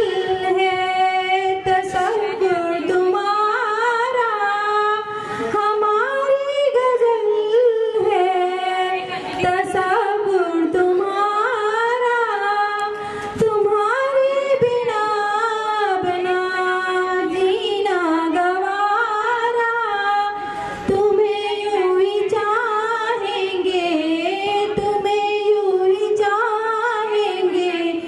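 A woman singing solo, a single voice holding long notes with slides in pitch between them.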